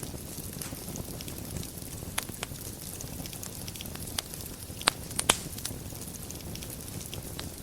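Wood fire burning in a fireplace: a steady low rumble of flames with scattered small crackles, and a few sharper pops a little past the middle.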